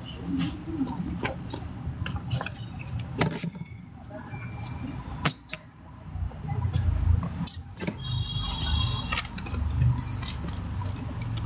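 Handling noise of a phone being carried and moved about: scattered clicks and knocks, with a louder uneven low rumbling of rubbing on the microphone from about six seconds in.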